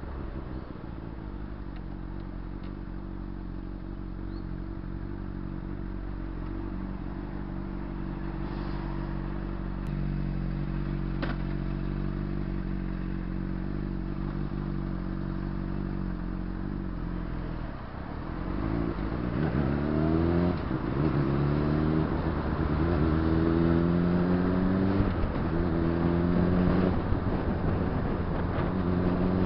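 Honda CBR600RR's inline-four engine running steadily at low revs. A little past the middle it pulls away and accelerates through the gears: the revs rise five or six times, each rise cut off by an upshift, and the engine gets louder.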